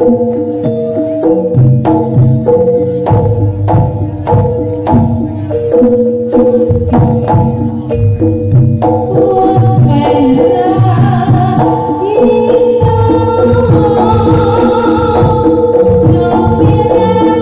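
Javanese gamelan music for jaranan: kendang hand drums beating a fast, driving rhythm over ringing metallophones and gongs. About nine seconds in, a wavering melody line comes in over the ensemble.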